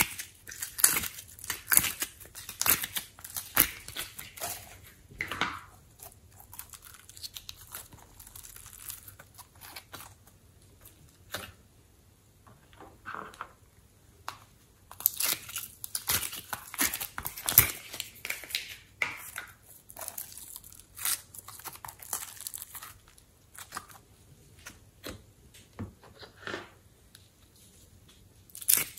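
Thin plastic slime cups crinkling and crackling as they are handled, squeezed and pulled apart, with sticky slime peeling out of them. The irregular crackles come in two busy spells, with quieter handling between.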